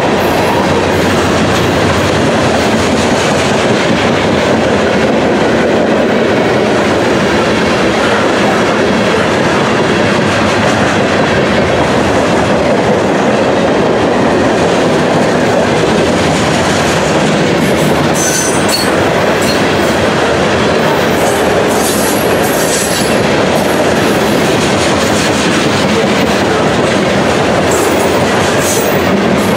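Freight train cars (covered hoppers and tank cars) rolling past at close range, their steel wheels clattering steadily over the rails. Brief high-pitched wheel squeals come now and then in the second half.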